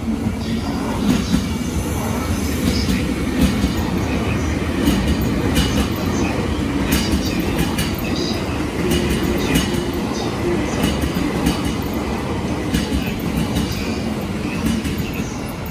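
JR East 651 series electric train rolling past on the adjacent track: a steady rumble with many sharp clicks as its wheels pass over rail joints and points.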